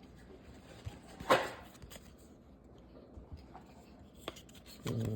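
Trading cards being handled as a stack is flipped through: one short card swish about a second in, with a few faint ticks of cards being moved.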